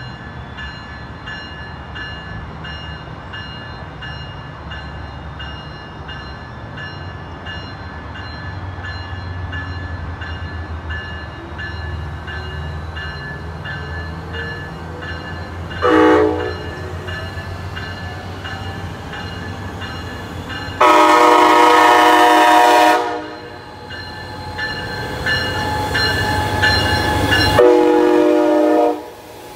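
Amtrak Pacific Surfliner arriving behind a Caltrans Siemens Charger diesel locomotive. Its engine rumble builds as it nears, and a bell rings steadily. The multi-note horn gives a short toot about halfway through, then a long blast, then another blast near the end.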